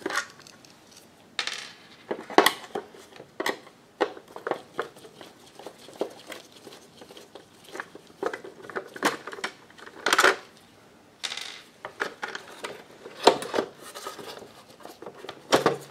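Screwdriver working screws out of a George Foreman grill's metal top case: irregular metallic clicks and clinks, with a louder clank about ten seconds in.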